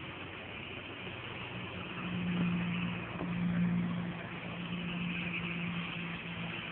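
A motor vehicle's engine hum, growing louder about two seconds in and holding until near the end, over a steady hiss of rain.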